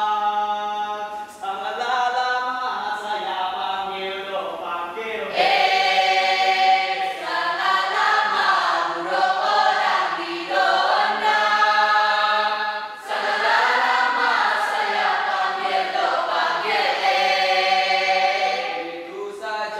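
A group of voices singing together, unaccompanied, in a song from the Kedah dance-drama Mek Mulung, with long held notes; the singing grows louder about five seconds in and briefly dips near the middle.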